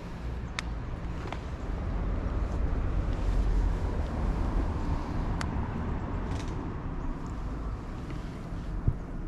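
Steady low outdoor rumble that swells a little in the middle, with a few faint clicks and a short knock near the end.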